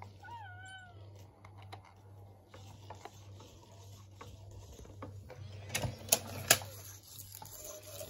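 Animatronic Grogu toy's small motors ticking and whirring as its eyes and head move, with a short warbling baby coo about half a second in. Two sharp clicks come around six seconds in, and a steady electronic tone begins near the end.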